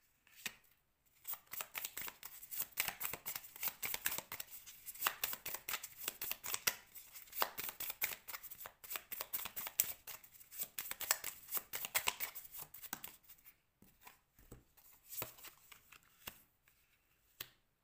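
A deck of oracle cards shuffled by hand: a quick, continuous run of card edges slapping and rustling for about twelve seconds. Then a few separate taps as cards are drawn and laid down.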